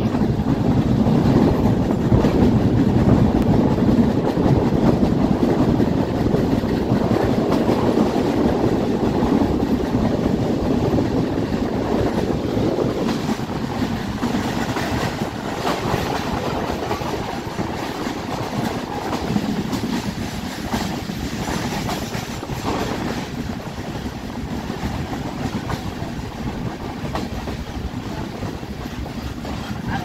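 A moving passenger train heard from an open coach window: a steady rumble and rush of wheels on the rails with occasional clacks, growing gradually quieter over the stretch.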